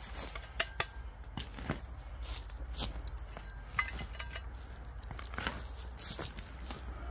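A serrated metal digging spade driven into dry turf under a boot, crunching and tearing through soil and roots, with a series of sharp clicks and scrapes as the blade bites in.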